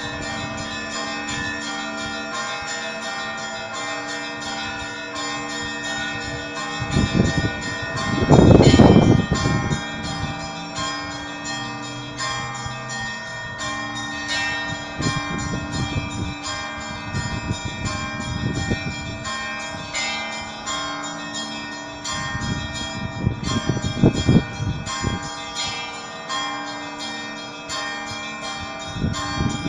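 Russian Orthodox cathedral bells pealing: small bells struck in a quick, dense rhythm over the ringing tones of the middle bells, with a deep low bell struck every few seconds, loudest about eight seconds in.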